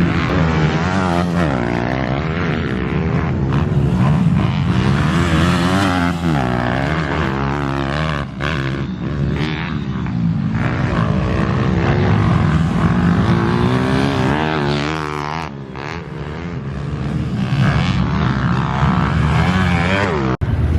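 Pit bike engine racing round a motocross track, its pitch rising and falling over and over as the throttle is opened and closed. The sound cuts out for an instant near the end.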